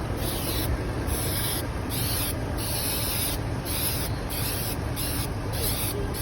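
Aerosol can of artificial spray snow hissing in short repeated bursts, about one or two a second, with brief gaps between sprays. A steady low rumble runs underneath.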